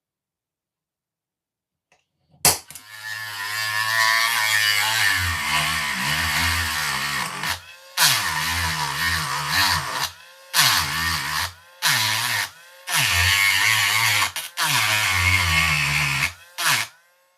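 A small handheld power tool running in about five bursts with short stops between, its pitch dipping and recovering as it bites into the metal.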